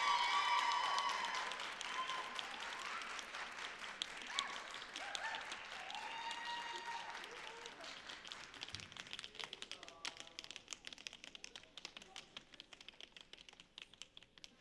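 Audience cheering, shouting and applauding. High-pitched calls and whoops are loudest at first, then die away over the first half, leaving claps that thin out to scattered ones near the end.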